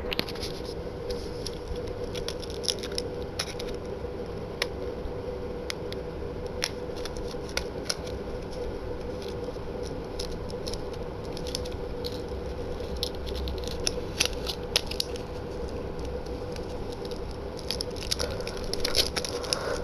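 Hands handling and prying at tight product packaging: scattered small clicks and crackles throughout, over a steady background hum.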